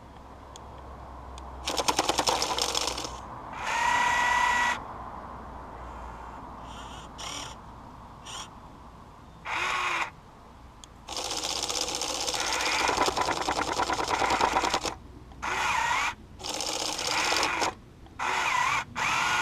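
Huina 1580 RC excavator's electric motors whining in short start-stop bursts, the pitch rising and falling as the arm moves. The modified jackhammer attachment rattles with fast rapid strikes against ice, once briefly about two seconds in and again for a few seconds in the second half, chipping at the ice.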